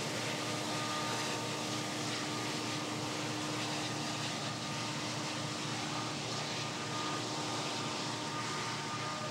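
Conrail diesel-electric locomotives hauling a coal train past, a steady engine drone mixed with the rolling noise of the train.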